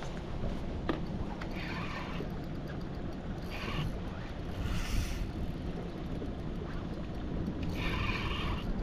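Wind rumbling on the microphone over open water, with a spinning reel cranked in several short spells as a hooked fish is reeled in.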